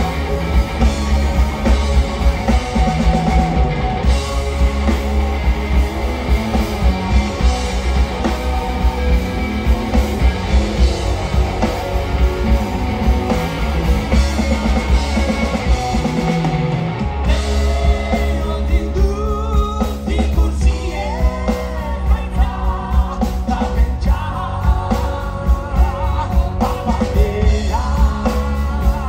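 Live rock band playing: distorted electric guitars, bass guitar and drum kit. The bass and kick drum drop out briefly a little past halfway, then return as a man starts singing over the band.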